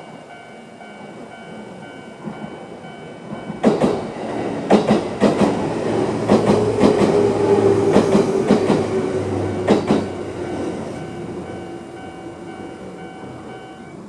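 Old-type electronic level-crossing bell ringing in a steady repeating pattern, stopping near the end. From about four seconds in to ten, a Seibu 4000 series electric train passes, its wheels clacking over the rail joints in quick clusters.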